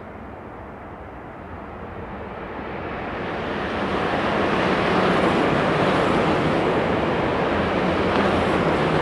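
Shinkansen bullet train passing at high speed on an elevated line. Its rushing noise builds over the first few seconds, then stays loud and steady.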